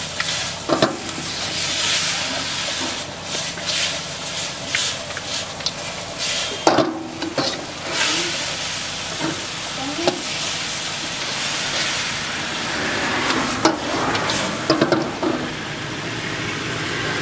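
Chicken stir-frying in a large wok: a steady sizzle, with the metal ladle scraping and now and then clanking sharply against the pan as the food is tossed.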